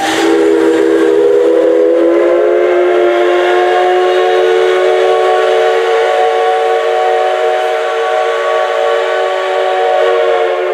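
Steam locomotive C56 160's whistle blowing one long blast of about ten seconds, a chord of several steady tones that slides up slightly as the valve opens.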